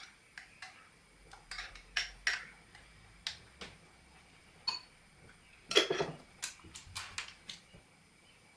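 Kitchen utensils clicking and tapping against dishes in irregular light knocks, with a louder clatter about six seconds in.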